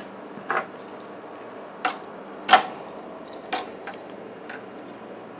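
Handling computer parts during a PC build: about five separate small clicks and taps a second or so apart, the loudest about two and a half seconds in.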